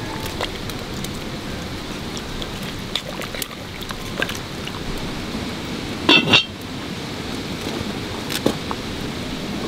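Light clinks of dishes and utensils against cookware over a steady hiss, with two louder ringing clinks close together about six seconds in.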